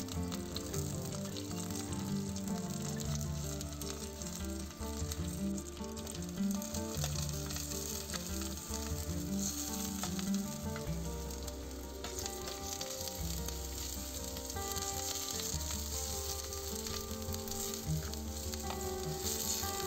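Sliced red onion and curry leaves sizzling steadily as they fry in hot coconut oil in a clay pot, now and then stirred with a metal ladle.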